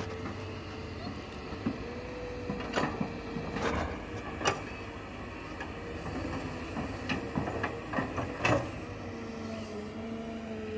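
Tracked hydraulic excavator running while digging, with a steady hum that shifts slightly in pitch under load and scattered knocks and clanks, loudest about 3 to 4.5 seconds in and again about 7 to 8.5 seconds in.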